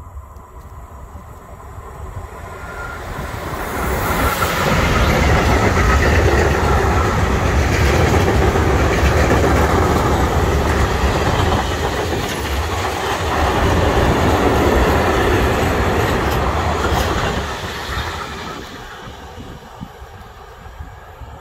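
Electric freight train, a Bombardier TRAXX Class 186 locomotive hauling a rake of tank wagons, passing close by at speed. Its wheels rumble and clatter on the rails. The sound builds over the first few seconds, stays loud for about fourteen seconds while the wagons go by, then fades as the train moves away.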